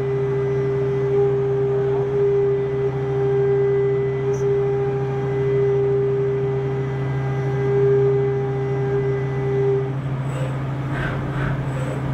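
Spinner U-620 CNC machining center running: a steady hum with a held higher tone that stops about ten seconds in, followed by a few short bursts of noise.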